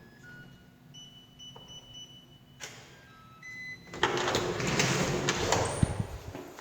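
Short electronic beeps at several pitches, like a digital door lock's keypad, followed from about four seconds in by a louder rattling stretch of a door being unlatched and opened.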